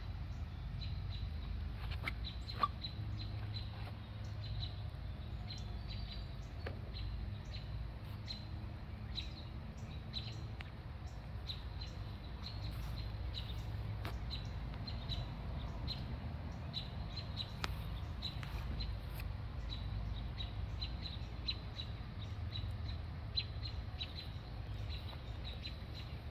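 Birds chirping in short, high notes repeated all the way through, over a steady low rumble, with a few sharp ticks.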